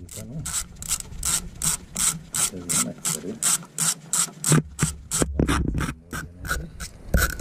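Socket ratchet wrench on an extension clicking in quick short strokes, about three to four a second, as it undoes a mounting bolt of a diesel engine's EGR valve.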